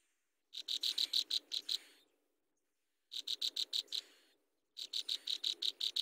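Nestling birds begging in the nest: three bursts of rapid, high-pitched chirps, about seven or eight a second, with silent gaps between them.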